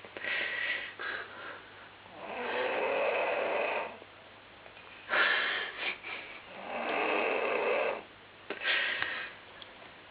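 Snoring: about five loud, rasping snore breaths, each about a second long, with short quieter gaps between them.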